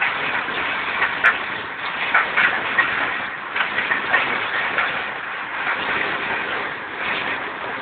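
Train running along the track: a steady noise with a few short, higher-pitched accents in the first few seconds.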